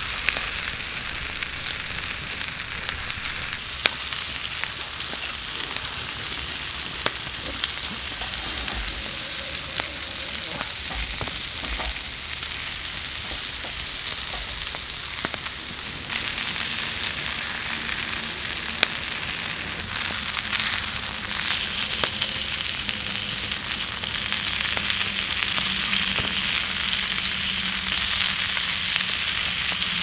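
Lamb chops sizzling on a hot iron griddle plate over a wood fire, a steady frying hiss with a few sharp clicks. The sizzle grows louder in the second half, after the chops are turned with tongs.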